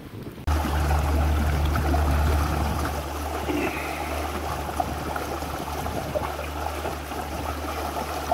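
Water rushing and splashing along the hull of a pontoon houseboat underway, over a steady low motor hum. It starts abruptly about half a second in.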